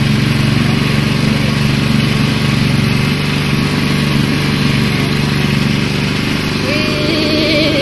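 Small pull-start petrol engine running steadily, driving the steel rollers of a sugarcane juice press as cane is crushed.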